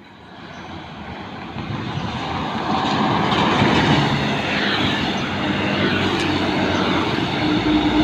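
Large tour coach's diesel engine and tyres growing louder over about three seconds as it approaches and passes close by, then a steady drone of the engine and road noise.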